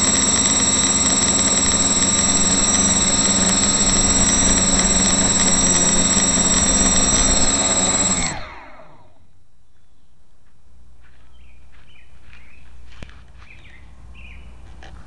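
Quadcopter's four brushless outrunner motors (Suppo 2212 1200kv, 8x4.5 props) running with a steady whine, heard through a camera fixed directly to the frame. About eight seconds in they spool down with a falling pitch and stop as the quad lands.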